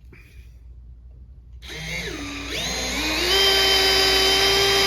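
Drill in its low speed setting driving a screw into wood with a number 2 Phillips bit. The motor starts after a second and a half of quiet; its whine wavers and climbs in pitch, then runs at a steady pitch.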